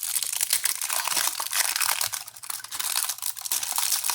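Plastic packaging crinkling and tearing in a dense, irregular run of crackles as a trading-card deck is unwrapped by hand.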